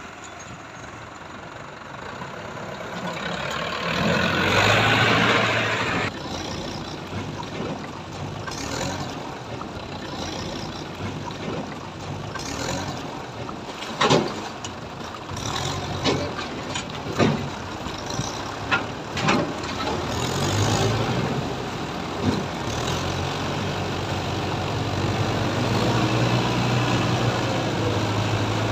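Diesel engines of Mahindra Yuvo tractors running as they drive through shallow water, with water splashing around the wheels. A loud rush of noise comes about four seconds in, and several sharp knocks fall in the middle stretch.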